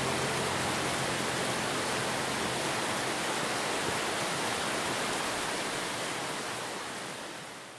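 Rushing water of a rocky stream: a steady, even hiss that fades out near the end.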